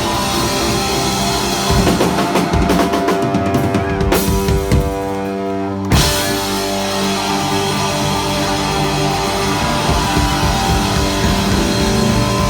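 Rock band playing live and loud, with electric guitar and drum kit. About two seconds in the band breaks into a few separate stop-time hits over a held chord, then comes back in full on a loud hit about six seconds in.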